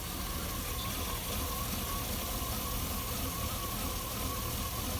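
Engine running at a steady idle, with a faint steady whine over the rumble. The owner puts its sound down to a big cam, and he also suspects a missing coil.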